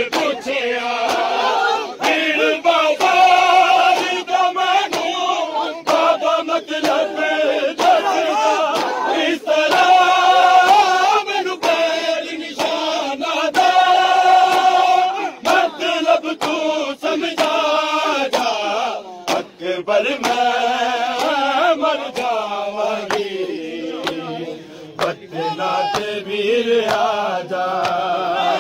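Large crowd of men chanting a mourning lament together in long sung lines, over a steady run of sharp slaps from matam chest-beating.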